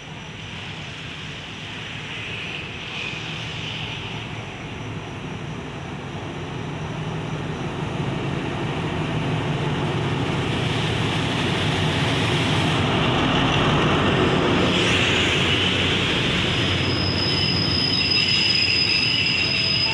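Alsthom diesel locomotive with an MTU engine approaching and running past, its engine hum and the rumble of the train growing steadily louder as the passenger coaches roll by. A thin high squeal starts near the end as the train brakes to stop at the platform.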